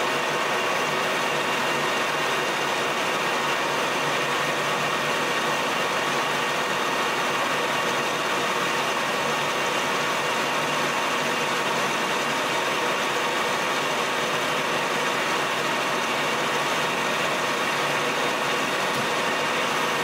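Colchester Master 2500 geared-head lathe running steadily at high spindle speed with a constant gear whine, while a tool turns down a small aluminium part.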